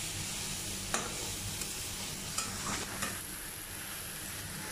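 A spatula stirring a horse gram stir-fry in a metal pan, the food sizzling, with a few sharp taps of the spatula against the pan about 1, 2.5 and 3 seconds in.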